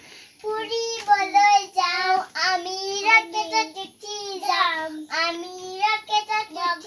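A young child singing a rhyme in Assamese, unaccompanied, in short high-pitched sung phrases.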